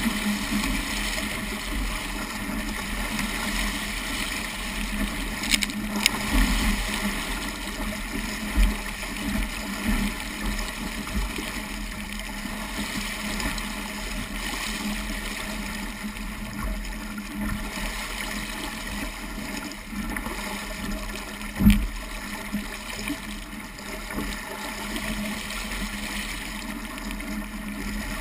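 Water rushing and splashing along the hull of a small Sabot sailing dinghy under way in choppy water, steady throughout, with a few knocks and one sharp thump about three-quarters of the way through.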